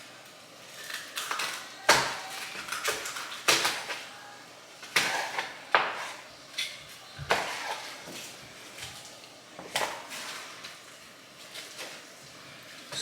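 Kitchen prep sounds: irregular sharp knocks and clatter against a hard surface, about eight in all, with handling and rustling noise in between.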